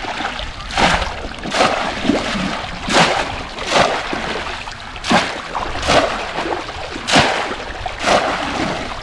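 Bamboo polo cone traps being plunged again and again into shallow floodwater, each stroke a sharp splash, the splashes coming about once a second in rough pairs, over the slosh of wading legs.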